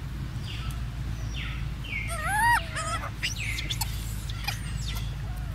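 Rhesus macaque giving a few short, arching coo calls that rise and then fall in pitch, the loudest about two seconds in, over a steady low background noise.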